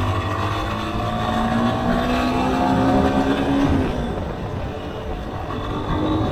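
200cc dual-sport motorcycle engine pulling under throttle while riding, its pitch climbing slowly for a few seconds. About four seconds in the engine note falls away and gets quieter, then picks up again near the end.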